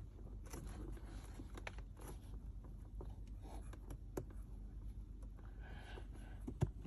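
Faint scrapes and small clicks of hands working the plastic tabs of a car's cabin air filter access cover. It ends in one sharp plastic snap near the end as the cover pulls free.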